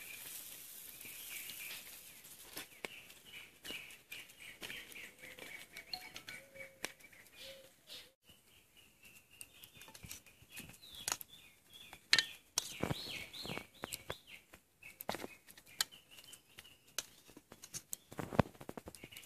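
Birds chirping on and off in the background, with scattered clicks and taps, a few of them louder knocks, from hands working pieces of pork trotter in a metal bowl.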